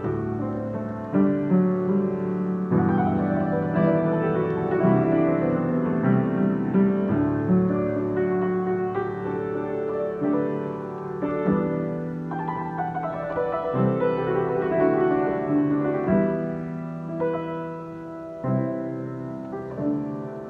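Piano improvisation: chords held in the low and middle register, with quick runs falling from the upper notes about 3 and 12 seconds in.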